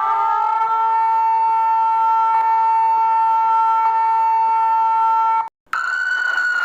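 Emergency alert siren tone that finishes rising in pitch, then holds one steady note for about five seconds and cuts off suddenly. After a brief gap, a second, higher siren tone starts and slowly falls in pitch.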